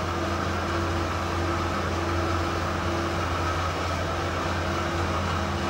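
Steady low hum of running machinery, unchanging throughout.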